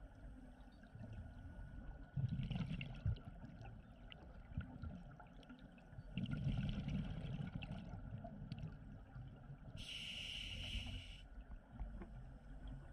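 Scuba diver breathing underwater through a regulator: a hiss and a low bubbling rumble recur roughly every four seconds.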